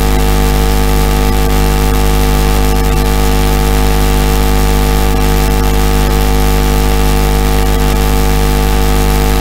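A loud, steady hum with several fixed pitches layered together, unchanging throughout, like a machine or electrical drone running continuously.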